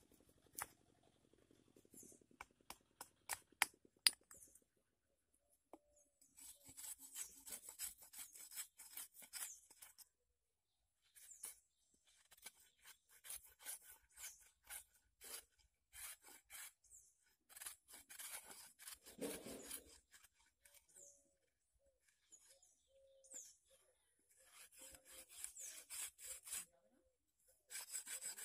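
Stone flake scraping bark and fibres off a green wooden stick braced on a rock, in long runs of quick, short scraping strokes with pauses between. A few sharp clicks come first, a couple of seconds in.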